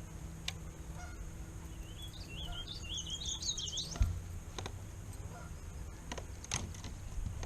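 A songbird singing a short run of quick, high, warbling notes lasting about two seconds, with a few faint clicks and a single thump about midway.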